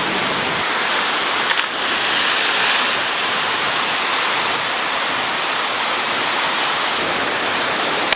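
Steady rush of whitewater river rapids, with a brief click about one and a half seconds in.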